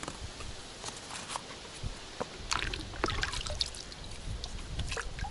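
A plastic bucket dipped into a shallow stream, water sloshing and trickling around it, with a few light knocks in the first couple of seconds before the water sounds pick up.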